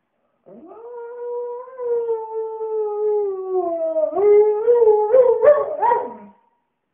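A husky howling: one long held howl that slowly slides down in pitch, then from about four seconds in, louder, broken, wavering yowls ending in a falling note.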